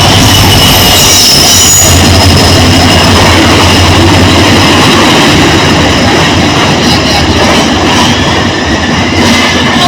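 Passenger train moving through the station, its wheels running loudly on the rails with a steady low drone, and high-pitched wheel squeal in the first couple of seconds.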